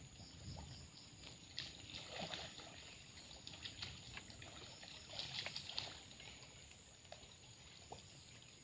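Faint splashing and sloshing of muddy stream water as people wade chest-deep and pull in a gill net. The small splashes come in clusters and die down after about six seconds.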